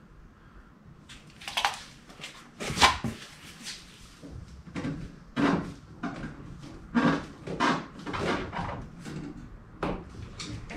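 Irregular knocks, rustles and scrapes of hands handling a car's wheel and tyre and reaching into the wheel arch.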